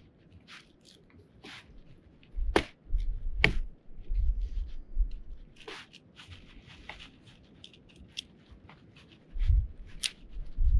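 Frame of a OneTigris lightweight camping cot being assembled by hand: its pole and foot joints click and knock as they are fitted and pushed into place, with two sharp clicks about two and a half and three and a half seconds in, among small scrapes and ticks of handling.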